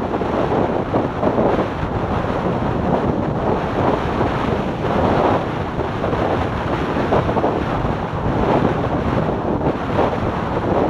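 Wind rushing and buffeting over the microphone of a motorcycle at highway speed, a loud, gusting noise that drowns out the engine and tyres.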